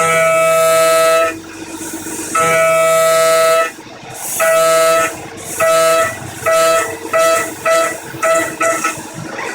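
A 4-flute carbide end mill at 6,000 rpm cutting thin steel sheet, giving a loud, horn-like tonal screech each time it engages. It makes two long cuts of about a second each, then a run of short cuts, about two a second near the end.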